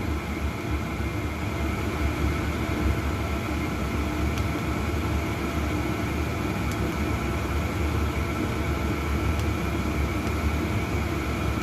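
Chinese diesel air heater running at full speed, its blower and burner giving a steady whooshing hum as it puts out hot air.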